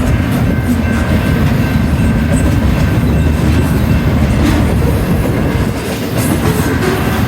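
BNSF intermodal freight train rolling past, a steady loud rumble of cars and wheels on the rails with a few sharp clacks over the rail joints.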